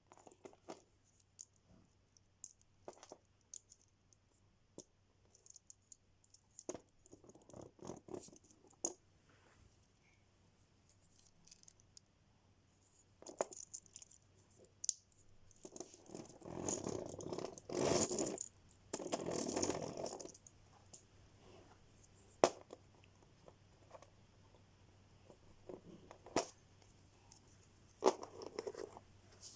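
Lego pieces and plastic packaging being handled: scattered small plastic clicks and taps, with longer stretches of rustling, the longest about halfway through.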